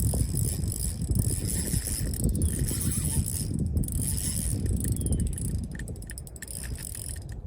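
Fishing reel ratcheting with rapid, continuous clicking while a hooked fish, taken for a golden trevally, fights on the line.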